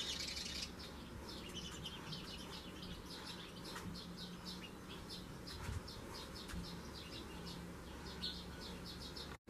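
Small birds chirping, many short high chirps in quick irregular succession, over a faint steady low hum.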